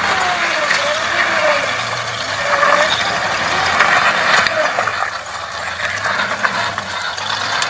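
Off-road trial truck's engine working hard under load as it crawls over a steep rocky slope, its pitch rising and falling with the throttle, with a few sharp knocks about four seconds in.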